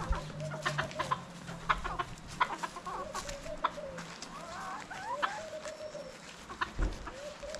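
Chickens clucking steadily, with a few higher rising calls in the middle and many short sharp clicks scattered through.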